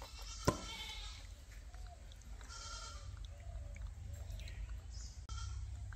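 A farm animal bleating in a few short, wavering calls, with one sharp knock about half a second in, over a steady low hum.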